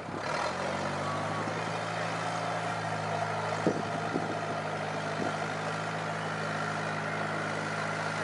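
Small tractor's engine running steadily at low speed, rising a little in pitch right at the start. A few light knocks come about four to five seconds in.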